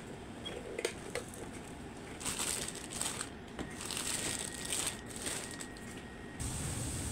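A couple of light clicks, then two bursts of crinkling and crunching handling noise from food prep at a sandwich maker. A steady low hum sets in near the end.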